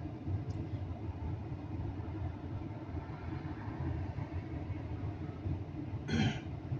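A steady low rumble, with one short, higher-pitched sound about six seconds in.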